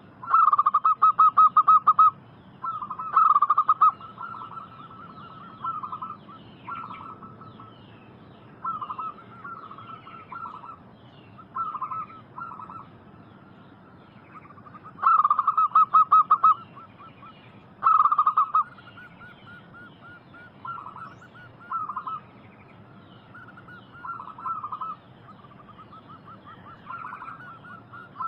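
Zebra doves (perkutut) cooing: repeated phrases of rapid staccato notes, each about a second or two long, some loud and close and others fainter.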